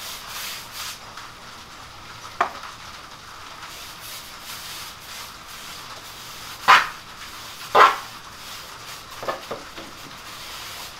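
Small paintbrush brushing paint onto a bookcase panel, with a steady patter of rain in the background. A few short knocks come through, the two loudest about seven and eight seconds in.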